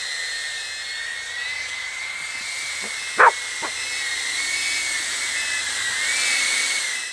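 An iFlight ProTek35 3.5-inch ducted FPV cinewhoop on a 4S battery flying, its motors and propellers giving a steady high-pitched whine that wavers a little, then grows louder and rises in pitch about six seconds in as it passes close. A brief sharp sound stands out about three seconds in.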